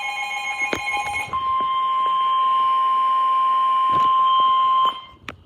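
NOAA Weather Radio warning alarm tone: a single steady 1050 Hz tone held for about three and a half seconds, then cutting off sharply. It follows a buzzier, lower tone in the first second, and a few short clicks of radio static come through.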